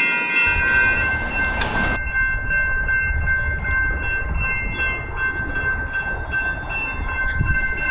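Railroad crossing electronic bells (GS Type 2 e-bells) ringing steadily as the signals flash. A heavy low rumble comes in about half a second in, from a train rolling through the crossing.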